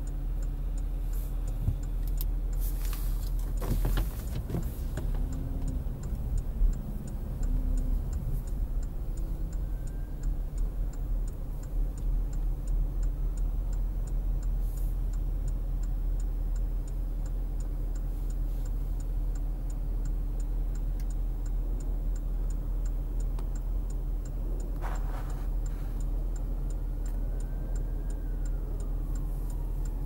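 Inside a stopped car's cabin: a steady low engine and fan hum, with a fast, even ticking throughout and a few brief knocks.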